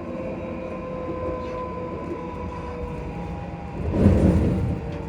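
Traction motors of a ScotRail Class 334 electric multiple unit humming with a steady whine that sinks slightly in pitch as the train slows, over the rumble of the train. About four seconds in there is a louder rumble lasting under a second.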